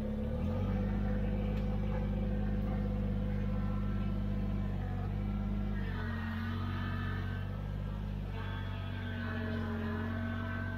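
Kubota BX23s compact tractor's three-cylinder diesel engine running steadily, revving up a little about half a second in. A fainter higher whine comes and goes over the second half.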